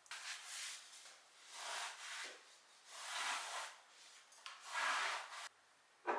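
Scrubbing a surface by hand in four long rubbing strokes, about one every second and a half, followed by a short knock near the end.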